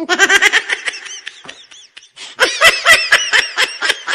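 High-pitched rapid giggling laughter used as a comic sound effect, in two quick runs of short 'hee-hee' pulses, the second louder.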